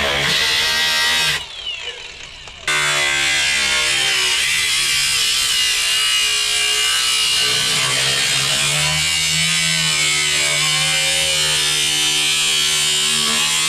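Power cutting tool buzzing steadily as it cuts through a BMW 2002's rusted sheet-metal floor pan. About a second and a half in it stops for about a second, then starts again and rises in pitch as it spins back up.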